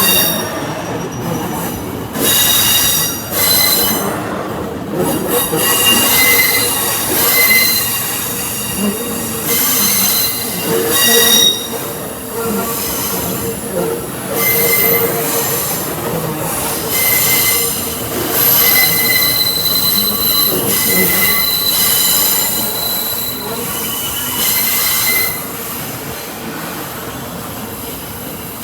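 Freight train wagons rolling past on the rails, their wheels squealing in repeated high-pitched bursts that come and go over a steady rumble.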